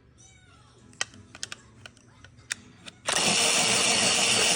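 A few light clicks and taps, then, about three seconds in, an electric pencil sharpener grinding a pencil with a loud, steady motor whir for about two seconds.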